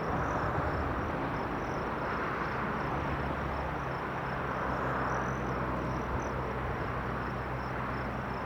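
Outdoor ambience: a steady rushing noise with a low hum beneath it, and a high insect chirping repeated at an even pace.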